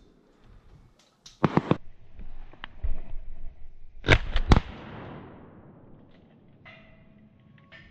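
12-gauge shotgun fired at passing wood pigeons: two volleys of sharp bangs, the first about a second and a half in and the second, loudest, about four seconds in, each trailing off in a rolling echo.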